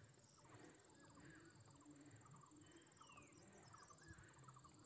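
Near silence with faint outdoor ambience: scattered small bird chirps, one falling whistle about three seconds in, and a steady high-pitched insect trill.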